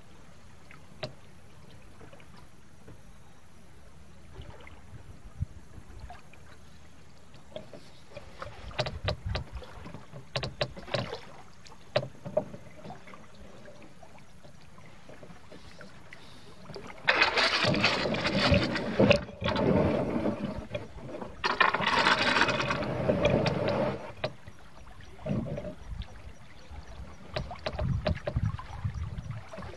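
Canoe being paddled on a creek: scattered knocks and light splashes of the paddle, with a loud rough rushing noise for about seven seconds past the middle, broken briefly twice.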